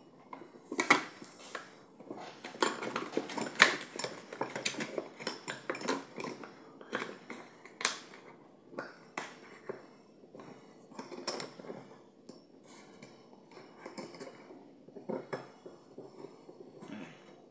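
Irregular clicks, knocks and crinkles of a plastic bottle and metal clamp parts being handled and fitted together by hand, the loudest knocks about a second in, near four seconds and near eight seconds, growing sparser later.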